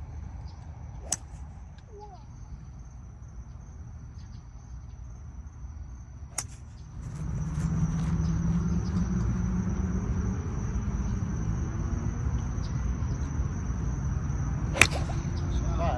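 Sharp cracks of a golf club striking the ball, three in all, the loudest near the end, over a steady thin high insect tone. From about seven seconds in, a low motor hum rises and stays.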